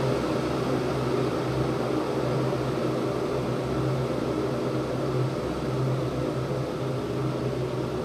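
Electric hot-water machine heating water: a steady hum with an even hiss.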